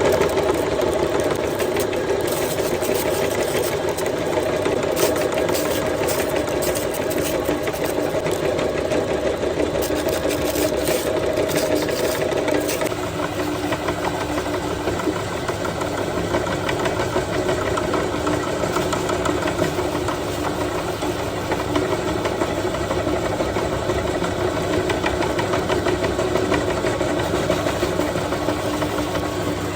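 Electric meat grinder running steadily as it grinds honey rice. The motor hums, with light clicking over the first thirteen seconds, and the tone changes about thirteen seconds in.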